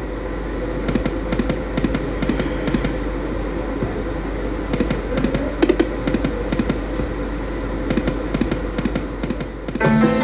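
Light & Wonder Dragon Train poker machine spinning its reels, with clusters of short clicks as the reels land, over a steady low hum. A chiming jingle from the machine starts near the end.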